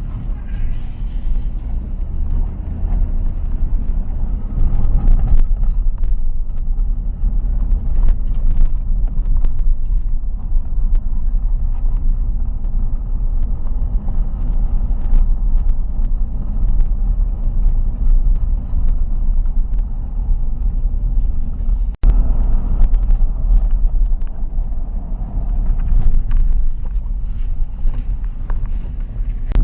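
Road noise heard from inside a moving car: a steady low rumble of tyres and engine, with small knocks and one momentary break about three-quarters of the way through.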